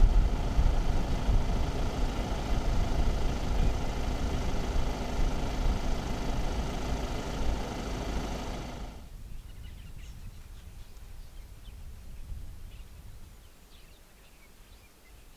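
Vehicle engine running steadily for about nine seconds, then cutting off suddenly. What remains is quiet open-air ambience with a few faint bird chirps.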